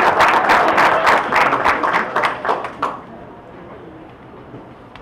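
Audience applauding, the clapping thinning out to a few last claps and stopping about three seconds in.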